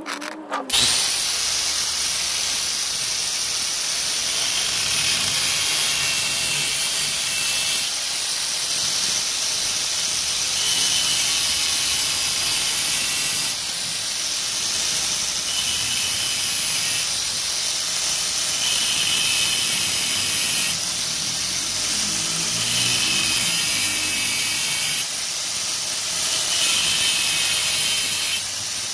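Electric angle grinder starting up about a second in and running at high speed, its cutting disc grinding into the metal casing of a large cylindrical LiFePO4 battery cell. The high motor whine sags every few seconds as the disc bites under load, then recovers.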